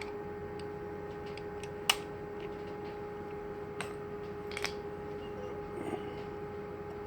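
A few small metallic clicks, one sharper about two seconds in, from a screwdriver turning the tailpiece slot of an electronic keypad door lock back by hand, over a steady electrical hum.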